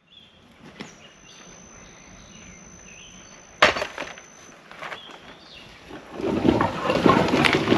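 Outdoor ambience with faint, short high chirps and a thin steady high whine, a sharp knock a little past halfway, then loud rustling and crunching with many small impacts over the last two seconds.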